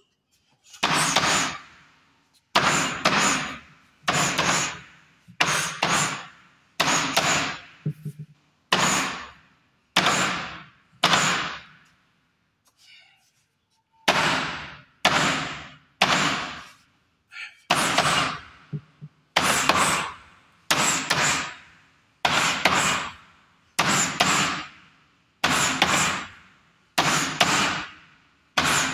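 Bare-knuckle punches landing on a canvas sand-filled heavy bag, a dull thud every second or so with a short echo after each. The blows stop for about two seconds midway, then resume at a slightly quicker pace.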